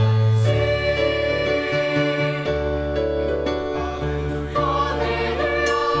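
Mixed high school choir of male and female voices singing a holiday carol, holding long chords that change every second or two.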